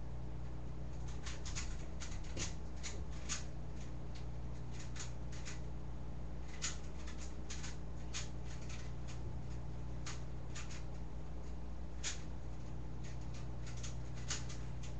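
Rubik's cube being turned quickly: strings of short plastic clicks in irregular clusters, over a steady low hum.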